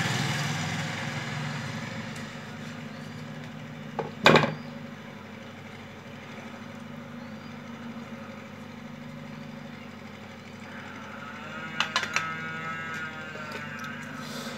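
Steady low engine-like hum, with one sharp knock about four seconds in and a few light clicks near the end as tools are handled on the workbench.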